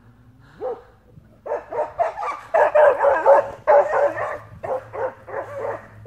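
A dog barking rapidly and continuously while fighting a wolf. A dense run of overlapping barks starts about a second and a half in, after one short call.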